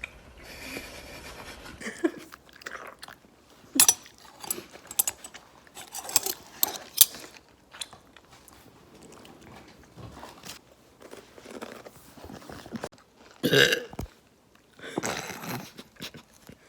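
Close-up eating sounds: crunching and chewing with scattered sharp crackles. About three seconds before the end comes a louder short sound that drops in pitch.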